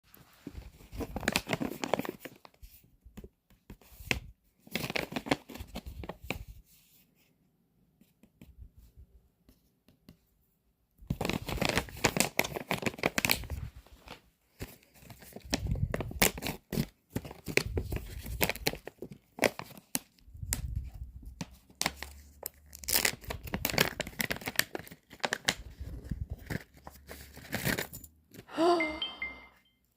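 Mystery-pack packaging being torn open and crinkled in repeated bouts, with pauses between them.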